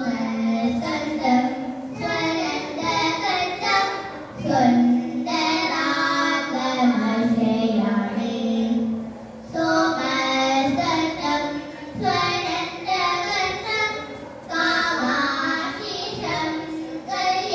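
Two young girls singing a Carnatic vocal piece together, in melodic phrases with brief pauses between them.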